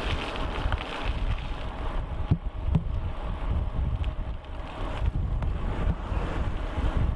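Wind buffeting the microphone over a low rumble, riding an e-bike uphill at about 21 km/h, with the faint steady whine of the Bafang geared hub motor under it. A couple of light knocks come a little over two seconds in.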